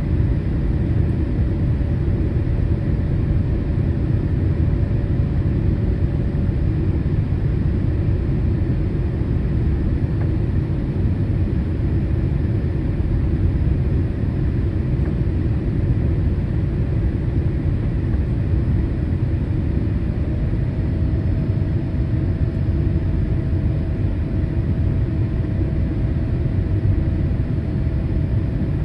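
Cabin noise inside a Boeing 787-8 airliner in flight: a steady deep rumble of airflow and engines, with a faint steady tone that steps up slightly in pitch about twenty seconds in.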